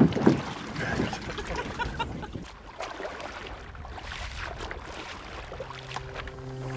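Water sloshing and splashing as a capsized plastic kayak is rolled upright in shallow water, loudest right at the start, then quieter water noise. Soft music fades in near the end.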